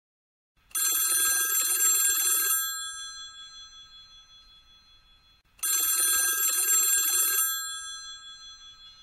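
Mobile phone ringing with a bell-style ringtone: two rings about five seconds apart, each about two seconds of loud bell ringing that then dies away slowly.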